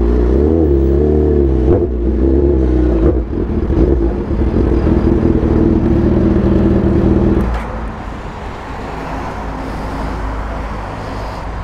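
Sport motorcycle engine running at low revs as the bike rolls slowly. Its pitch wavers up and down at first, then holds steady. The engine cuts off suddenly about seven and a half seconds in, leaving the quieter hum of street traffic.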